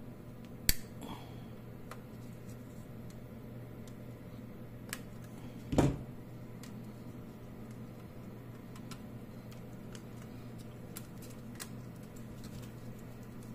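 Light clicks and taps of small parts and tools being handled on a workbench, with a sharp click under a second in and a heavier knock about six seconds in, over a steady low hum.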